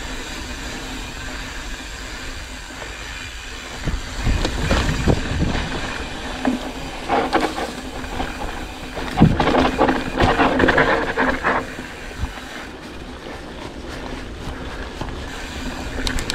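Mountain bike riding on a dirt trail: tyres rolling and the bike's chain and frame rattling over rough ground, with a low rumble throughout. It gets louder and rougher about 4 s in, around 7 s, and from about 9 to 11 s.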